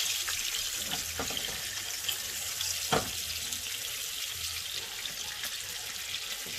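Pork chop frying in butter and olive oil in a pan: a steady sizzle with a few sharp pops, the loudest about three seconds in.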